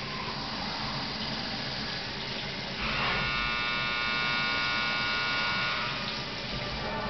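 Fadal CNC mill machining a humbucker keeper bar with a small cutter under flood coolant: a steady whirring, hissing machining noise. About three seconds in, a louder pitched squeal from the cut sets in and lasts about three seconds before dropping away.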